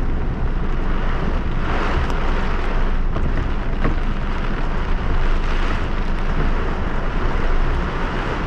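Torrential rain and strong gusting wind lashing a car, heard from inside the cabin: a dense, steady rush of noise over a deep rumble, swelling briefly about two seconds in.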